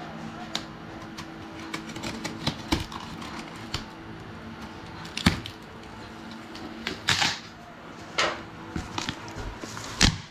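Utility knife slitting the packing tape on a cardboard box, then the cardboard flaps being pulled open and rubbing: a run of small clicks and scratches with a few louder cardboard scrapes, over a steady low hum.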